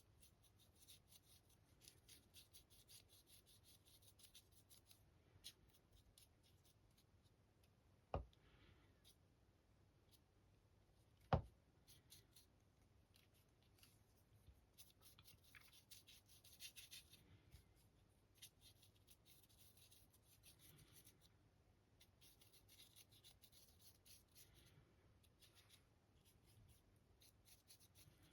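Faint scratchy rubbing of a paintbrush scrubbing acrylic paint into a model's surface, in short repeated strokes. Two sharp knocks stand out about 8 and 11 seconds in, the second louder.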